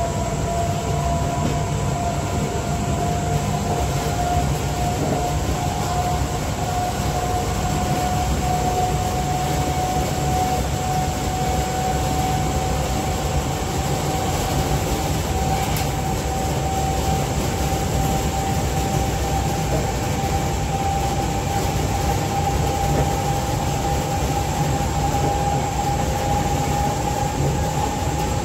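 Z20500 double-deck electric train's motor car running under power, its traction whine climbing slowly and steadily in pitch as the train accelerates, over a steady rumble of wheels on the track.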